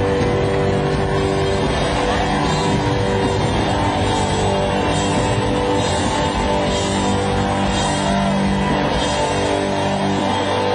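Loud rock music with electric guitar and drums, the guitar holding sustained chords.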